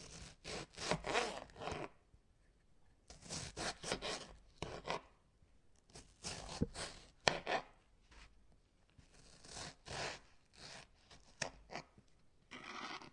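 Crisp raw vegetables crunching and rubbing, in about five separate groups of a second or two each, each group made of several quick crackling strokes.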